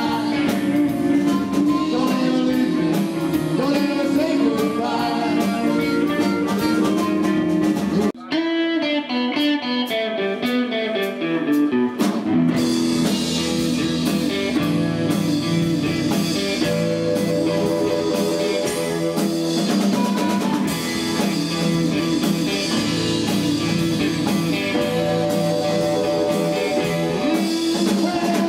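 Live rhythm-and-blues band playing, with electric guitars, bass and drum kit. About eight seconds in the drums and band stop for a short descending solo run by one instrument, and the full band crashes back in about four seconds later.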